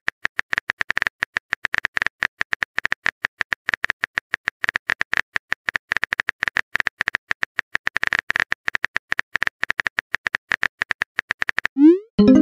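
Rapid, irregular clicks of a phone keyboard typing sound effect, several taps a second. Just before the end a short rising swoosh plays as the message is sent.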